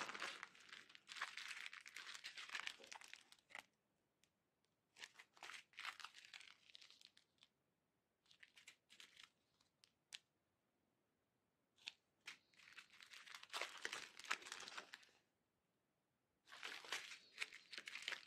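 Clear plastic bag of diamond painting drill sachets crinkling and being torn open by hand. It comes in about four short, faint bursts of rustling, with a few small clicks between them.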